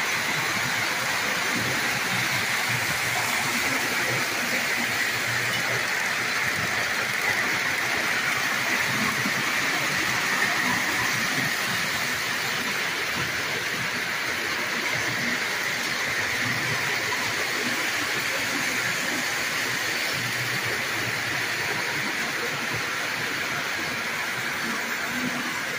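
Lionel O-gauge toy trains running on three-rail track: the steady whir and rumble of metal wheels and motors, a little softer in the second half.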